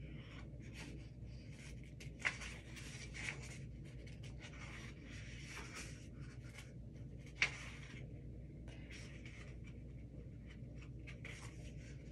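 Paper pages of a picture book being handled and turned, an irregular rustling, with two sharp clicks about two seconds in and about seven seconds in.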